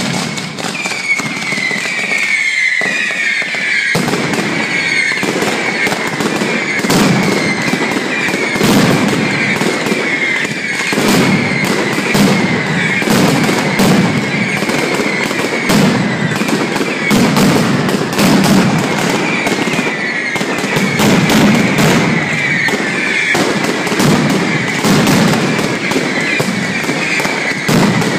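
Mascletà barrage: strings of firecrackers going off in a dense, continuous rattle of sharp bangs, which grows deeper and heavier about four seconds in. Repeated whistling fireworks slide down in pitch over the top of the bangs.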